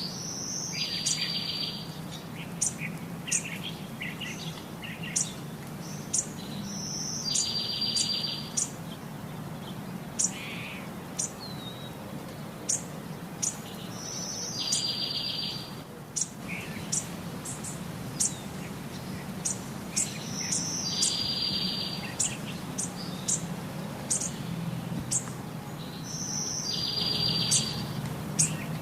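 Birdsong: scattered high chirps, with a longer call that comes back about every six and a half seconds, over a faint steady low hum.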